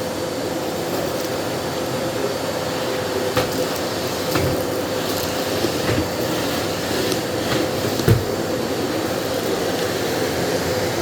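Miele CX1 Blizzard bagless vacuum cleaner running steadily, with a constant whine over its airflow noise. A few short knocks and clicks sound over it, the loudest about eight seconds in.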